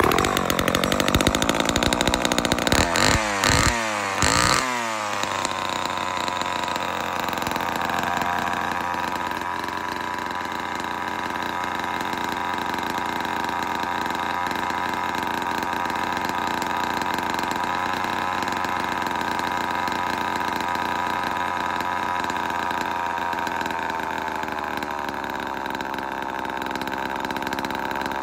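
Vintage Homelite Super XL-12 chainsaw's two-stroke single-cylinder engine, long unused, firing at the pull of the cord and revving up and down for the first few seconds, then settling into a steady fast run.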